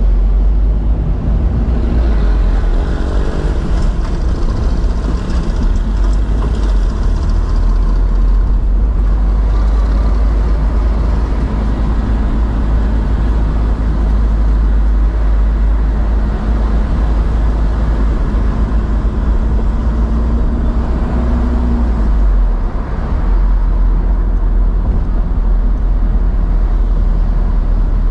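Car driving slowly in town traffic: a steady low engine and road rumble. A faint held hum comes in about midway, rises slightly and stops.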